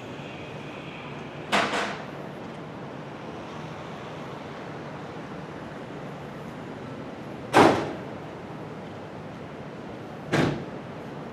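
Steady background noise broken by three sharp bangs: a quick double one about a second and a half in, the loudest about seven and a half seconds in, and another near the end.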